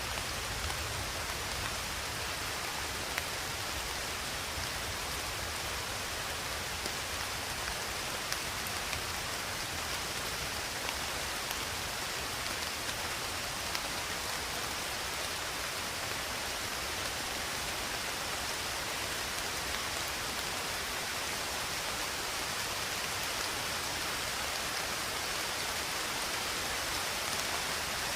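Steady rain: an even hiss of falling rain with an occasional single drop ticking louder.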